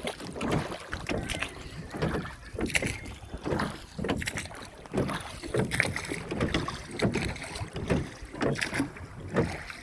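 Small boat moving on the dam's water: an uneven run of splashes and knocks, a bit more than one a second, with wind on the microphone.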